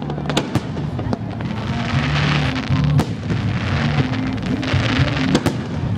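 Fireworks bursting and crackling over music from loudspeakers. Sharp bangs come just after the start, at about three seconds and near five and a half seconds, with bursts of crackle in between.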